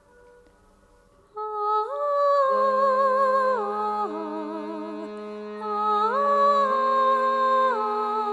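Background music: after a near-silent start, a slow, wordless melody with vibrato comes in about a second and a half in, over a held low note.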